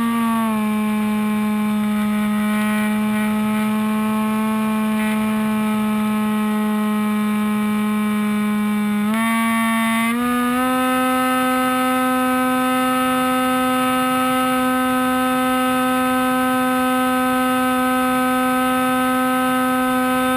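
Hawk Sky RC plane's electric motor and propeller, heard from the camera mounted on the plane in flight. It gives a steady whine with a faint rush of air beneath it. The pitch drops slightly about half a second in, then climbs in steps around nine to ten seconds in and holds there.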